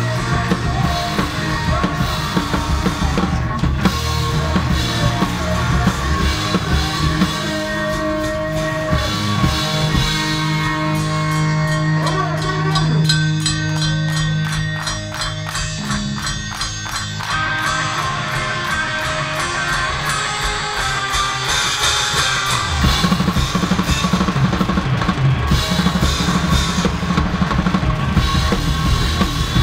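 Punk rock band playing live, with the drum kit up close: bass drum, snare and cymbals drive the song. About ten seconds in the band drops to a sparser breakdown, with a held low note and steady light strokes. The full kit and band come crashing back in about 22 seconds in.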